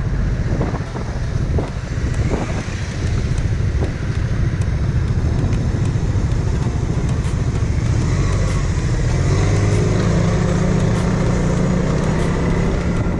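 Motorcycle riding under way, its engine running steadily, with the engine note growing stronger from about eight seconds in.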